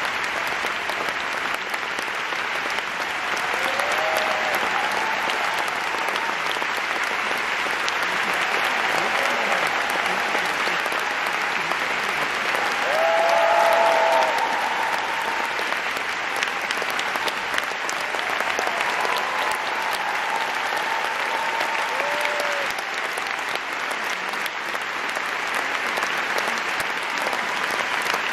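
Audience applauding steadily, swelling louder for a moment about halfway through.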